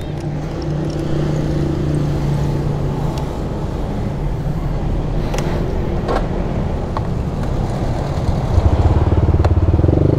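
Yamaha Aerox 155 scooter's single-cylinder engine running steadily while riding, over road and traffic noise. The sound grows louder and heavier about eight and a half seconds in.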